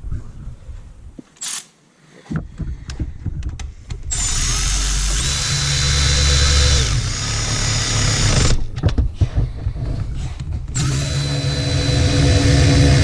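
Handheld power drill-type tool running in two long runs of about four seconds each, with light clicks and clinks of tool handling before the first.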